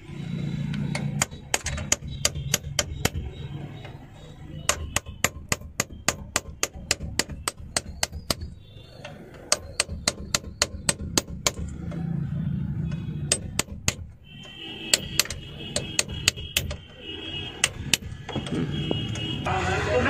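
Hammer tapping on metal in runs of sharp strikes, about three a second with short pauses, as the bolts of a Honda Amaze's steering-column ignition lock are worked loose.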